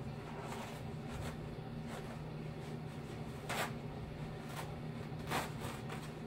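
Steady low hum of room tone, with two brief soft rustles about three and a half and five and a half seconds in.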